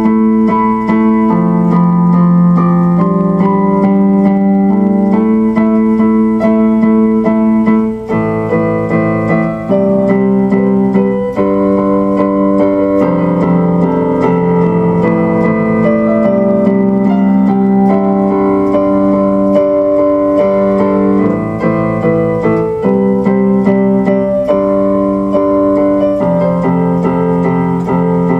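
Instrumental music played on an electric piano or keyboard, sustained chords changing every second or two.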